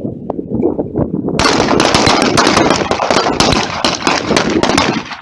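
Rapid pistol fire from several shooters on a firing line, the shots overlapping into a continuous barrage. It becomes much louder and sharper about a second and a half in and cuts off at the very end.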